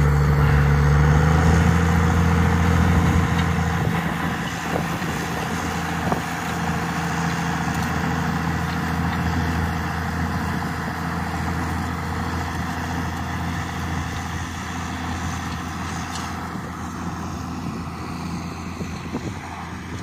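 County four-wheel-drive tractor's diesel engine working under load as it pulls a reversible plough through stubble, a steady drone that slowly fades as the tractor moves away.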